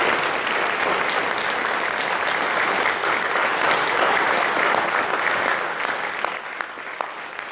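Audience applauding, dense and steady, then thinning out near the end to a few separate claps.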